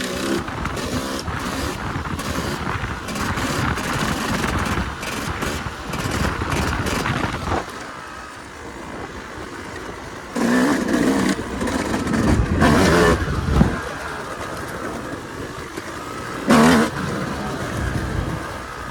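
Yamaha YZ250 two-stroke dirt bike engine running under riding, with louder bursts of throttle, several from about ten seconds in and a short sharp one near the end.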